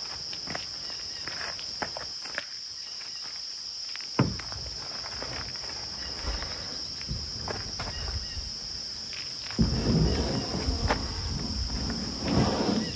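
Steady high-pitched insect chorus throughout, with footsteps and scattered knocks over it, one sharp thump about four seconds in, and louder rustling and handling noise from about ten seconds in.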